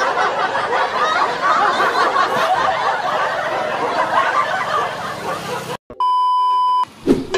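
Laughter from several people, chuckling and snickering, cuts off about six seconds in. A steady electronic beep follows for under a second, then a short glitchy burst of noise.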